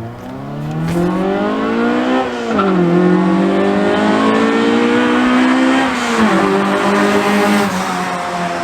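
Acura Integra's B-series four-cylinder engine, breathing through a header and resonator exhaust, pulling hard through the gears: its pitch climbs steadily, falls sharply at an upshift a little over two seconds in, climbs again, and falls at a second upshift about six seconds in.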